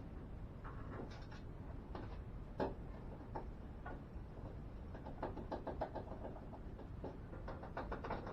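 Scattered light knocks and quick rattling clicks, as of objects being handled and set down, with one sharper knock about two and a half seconds in, over a steady low hum.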